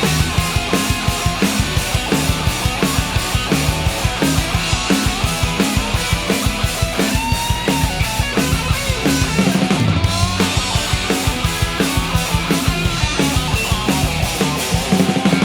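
Blues-rock band playing an instrumental break: a drum kit keeps a fast, even beat under a lead line with notes that bend up and down.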